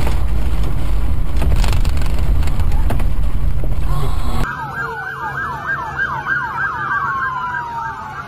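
Loud rumble of road and wind noise inside a moving car, with a few knocks. About four and a half seconds in it cuts off suddenly, giving way to a quieter emergency-vehicle siren in fast yelp mode: rapid up-and-down wails, then one longer falling wail near the end.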